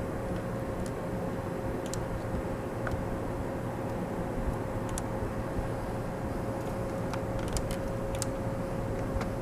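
Steady background hum and noise with a constant mid-pitched whine, with a few faint ticks scattered through it.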